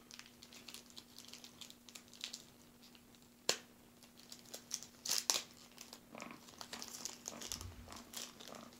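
Plastic wrapping and tape on a sealed pack of cards crinkling and tearing as it is peeled off by hand, with scattered crackles, a sharp snap about three and a half seconds in and a louder flurry of crinkling a little after five seconds.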